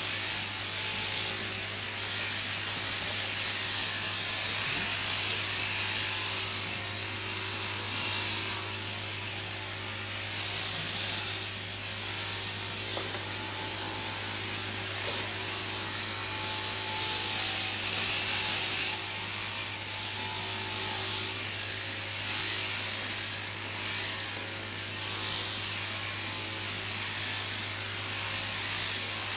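Electric sheep-shearing handpieces running steadily, the comb and cutter buzzing through merino fleece over a constant low hum; the hiss of the cutting rises and falls as the blows go through the wool.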